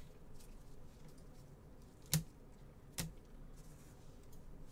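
Two sharp clicks a little under a second apart over faint handling rustle, as gloved hands work a trading-card box and hard plastic card cases.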